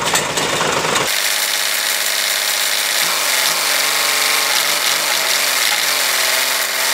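Oliver tractor's engine running on the hand throttle while its front loader lifts a heavy load. The engine note changes abruptly about a second in, then wavers in pitch for a few seconds under the lift.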